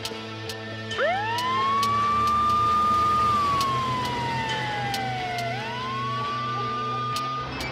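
Police van siren sounding one wail: it winds up fast to a high pitch about a second in, holds, falls slowly, climbs again and stops shortly before the end.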